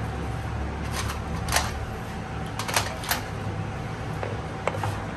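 Sharp metallic clinks and knocks, about seven spread irregularly, from tools and transmission parts being handled during a gearbox rebuild. A steady low hum runs underneath.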